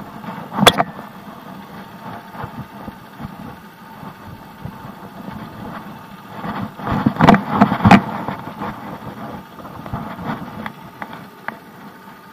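Small motorcycle engine idling at a standstill, with a sharp knock about a second in and two more close together around the middle.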